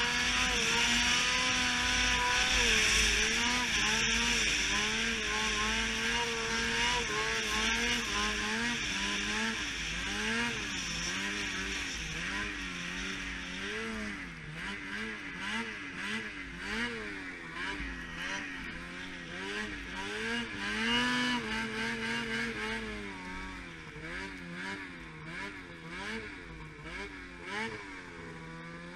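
Snowmobile engine running under load through deep powder, its pitch rising and falling constantly with the throttle. Louder and held higher through the first half, then it eases off into quicker, shorter revs.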